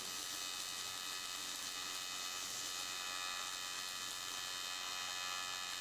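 Stick (MMA) welding arc from a PowerWeld XT202 inverter welder, set to 110 amps, burning steadily as the rod is stitched in small circles along a steel diff-pan seam on an axle casing: a constant hiss with a faint steady hum beneath it.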